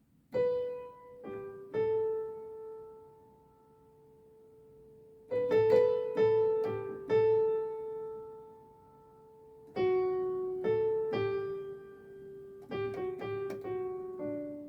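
Piano or keyboard playing a short, simple melodic pattern of single notes drawn from D, E, F sharp, G, A and B. The notes come in three short phrases, each note left to ring and fade, with a pause of a few seconds between the first two phrases.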